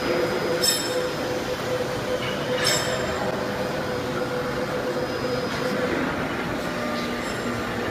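Factory machinery running with a steady hum that fades out about six seconds in, over a constant noisy background, with two sharp clicks in the first three seconds.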